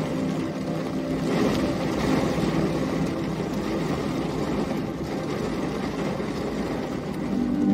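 Steady rushing rain noise with a low rumble underneath. A soft sustained music pad fades out about a second in and swells back near the end.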